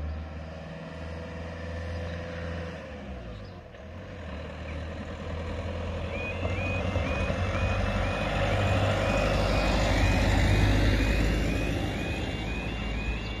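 Level crossing warning alarm starts about six seconds in as the amber lights come on: a repeating two-tone yodel, about two cycles a second. Under it a van's engine and tyres pass over the crossing, loudest about ten seconds in.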